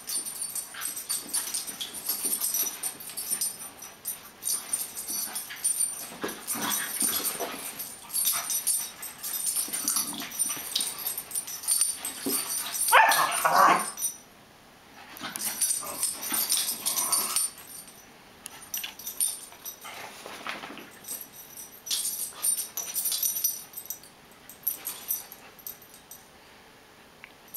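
A beagle and a wire-coated terrier play-fighting: scattered short dog vocal sounds and scuffling, with one louder dog cry about halfway through.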